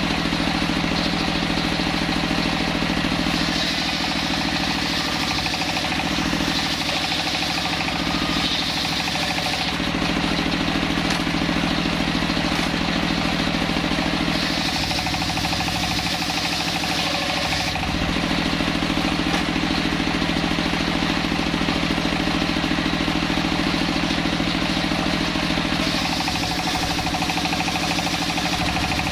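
A large circular sawmill blade driven by an engine running steadily throughout. The engine's drone is joined three times by the harsher hiss of the blade cutting through a log, for a few seconds each time.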